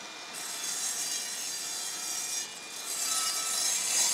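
Evolution R255SMS-DB-Li 36V cordless sliding mitre saw running at speed with a steady motor whine, its blade cutting through a wide board in a test crosscut. The cutting noise comes in about a third of a second in, eases briefly around two and a half seconds, then returns and is loudest near the end.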